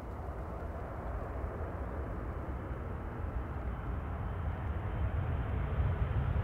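Boeing KC-46A Pegasus's two Pratt & Whitney PW4062 turbofans at takeoff thrust as the tanker lifts off: a low rumble that grows steadily louder.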